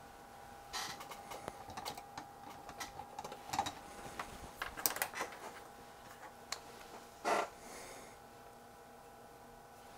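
Faint handling clicks and rattles of a Probe Master ×10 oscilloscope probe as its hook tip and ground clip are unhooked and it is moved, with a louder clatter about seven seconds in as it is set down on the wooden bench. A faint steady tone runs underneath.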